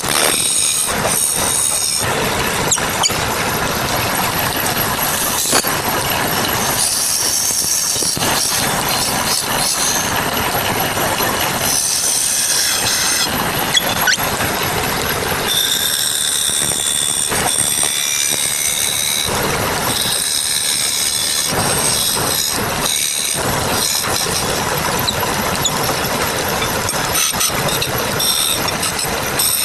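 Wood lathe turning a wooden lid, with a turning tool cutting the spinning wood: a steady scraping rush with a high-pitched squeal that comes and goes as the tool bites.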